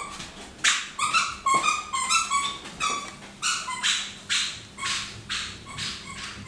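A dog chewing a squeaky toy: a quick run of short, high-pitched squeaks, about two to three a second.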